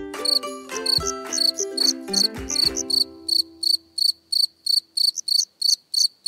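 Cricket chirps, about four a second, steady and evenly spaced, while a plucked ukulele-like outro tune dies away over the first three seconds.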